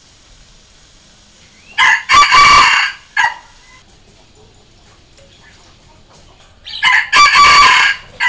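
A junglefowl rooster crowing twice, about five seconds apart. Each crow lasts about a second, and the first is followed by a short clipped note. It is a decoy crow, played to call wild junglefowl.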